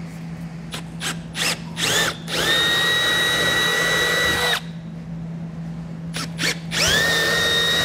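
Cordless Milwaukee Fuel drill with a 5/16-inch bit enlarging the license plate mounting holes. It gives a few short trigger pulses, then runs in a steady high whine for about two seconds and stops. After a pause come more quick pulses, and a second steady run near the end.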